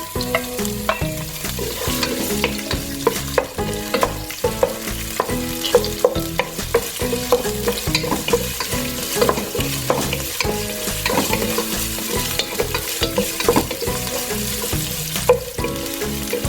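Green chillies, garlic and ginger sizzling in hot coconut oil in a non-stick pan, stirred with a spatula that clicks and scrapes against the pan many times.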